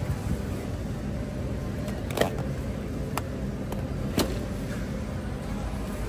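Warehouse store background: a steady low hum and rumble, with a few sharp clacks, the loudest about two and four seconds in.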